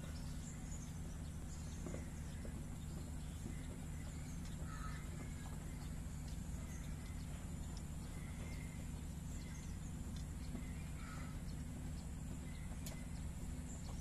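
Outdoor ambience: a steady low rumble with a constant high insect drone, and a few faint short bird calls scattered through.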